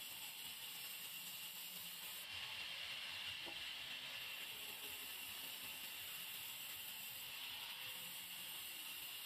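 Large vertical band saw running, its blade cutting through an old weathered timber beam: a steady hiss that turns a little brighter about two seconds in.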